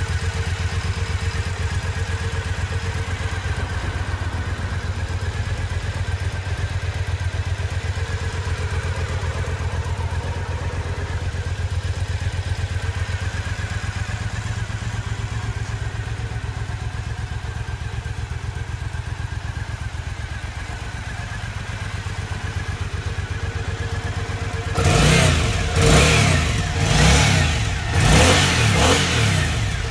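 Triumph Bonneville America 865cc air-cooled parallel-twin idling steadily. Near the end the throttle is blipped about five times in quick succession, each rev rising sharply and dropping back.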